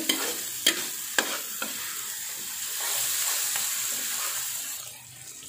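Chopped green chillies, shallots, garlic and green tomatoes sizzling in oil in a nonstick wok while a metal spatula stirs them. Three sharp taps of the spatula against the pan in the first two seconds; the sizzle eases near the end.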